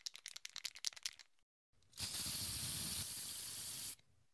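Aerosol spray paint can shaken, its mixing ball rattling rapidly for just over a second, then a steady spray hiss for about two seconds that stops shortly before the end.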